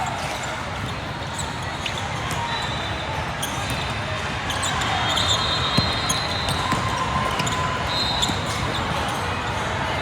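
Basketball gym during live play: steady crowd noise with a ball bouncing on the hardwood and brief sneaker squeaks on the court.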